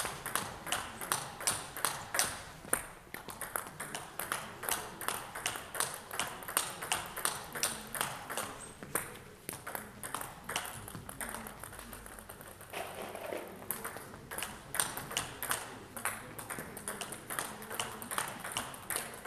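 Table tennis rally: the celluloid ball clicking alternately off rackets and the table at a steady pace of two to three hits a second, in a backhand-to-backhand counter-topspin drill. The hits grow briefly softer about midway through.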